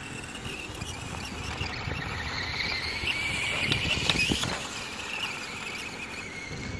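SKYRC SR5 1/4-scale RC dirt bike's brushless electric motor and drivetrain whining as it rides across sand. The whine rises in pitch and grows louder about three to four seconds in as the throttle comes up, then eases back.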